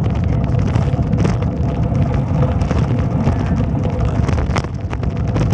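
Wind buffeting the phone's microphone during a ride in an open vehicle, over the steady drone of its engine.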